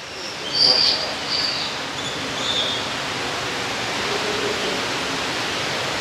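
Steady rush of an indoor aviary waterfall, with a few short, high bird chirps in the first three seconds.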